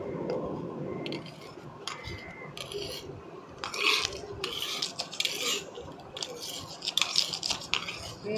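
Kitchen knife shaving the scales off a large catla fish, the blade scraping through the scales in uneven strokes.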